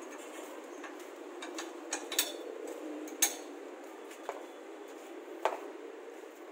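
About five light, sharp metallic clicks and knocks as a mountain bike's frame is set into a hitch-mounted bike rack's cradles and secured, over steady faint background noise.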